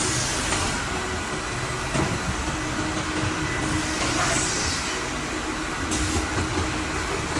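Wood-processing machinery on a plywood line running with a steady, dense mechanical noise and a faint held hum. Two sharp knocks come about two seconds in and again near six seconds.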